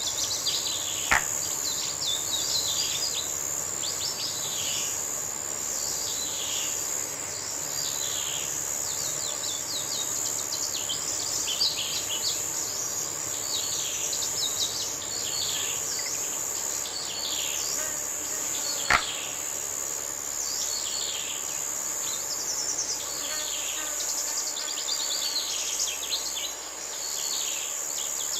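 Countryside ambience: insects keep up a steady high-pitched drone while birds give short, falling chirps over and over. Two sharp clicks stand out, one about a second in and one about two-thirds of the way through.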